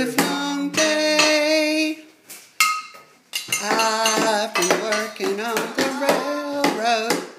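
Tin cans on a table tapped like drums with a pencil, making sharp metallic clinks, over a person singing a tune.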